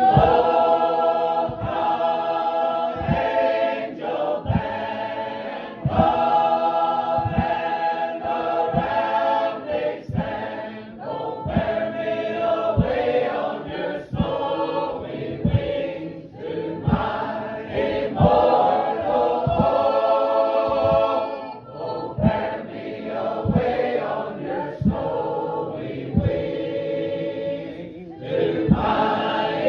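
A group of shape-note singers singing a hymn a cappella in full harmony, with soft low thumps about once a second under the singing.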